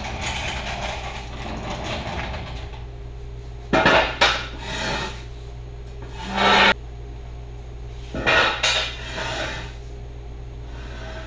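Metal scraping and clanking from a floor jack and steel jack stands being worked under an SUV. Rubbing and scraping at first, then loud clanks about four seconds in, at six and a half seconds, and again at eight and a half.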